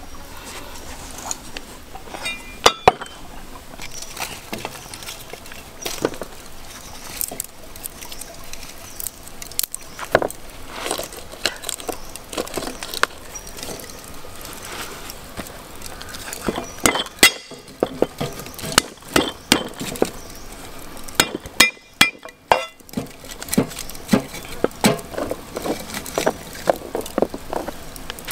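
Scattered knocks and clinks of ingredients and utensils being handled and set down. Near the end, a cleaver chops on a round wooden chopping block in a run of quick strikes.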